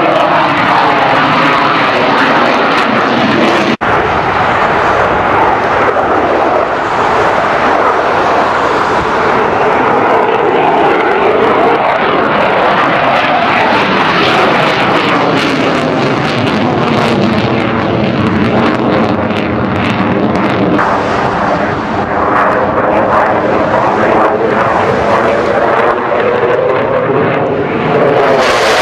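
F-16 fighter jet's engine noise, loud and continuous as the jet manoeuvres overhead, its pitch sliding slowly up and down as it passes and turns. There is a brief sharp break about four seconds in.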